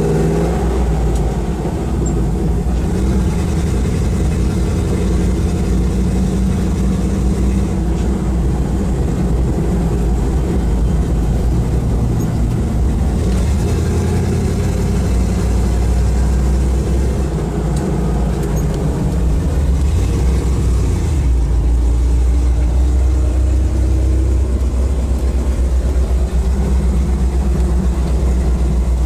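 1972 Ford Bronco's 302 V8 engine running as the truck drives at low speed, its note rising and falling with the throttle.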